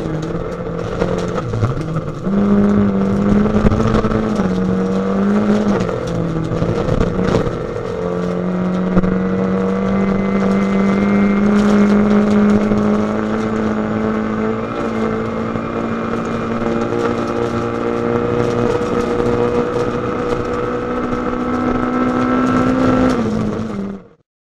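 Rally car engine heard from inside the cabin, driven hard on a gravel stage. Its pitch drops and climbs through gear changes in the first few seconds, then holds high and steady under load, with scattered sharp knocks. The sound fades out at the very end.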